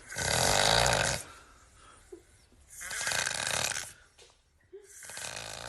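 Loud snoring: three long snores of about a second each, roughly two seconds apart, with quiet breaths between them.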